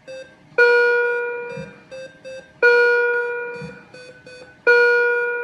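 Hospital patient-monitor alarm: a chiming electronic tone that starts sharply and fades away, sounding three times about two seconds apart, with short faint beeps between the chimes.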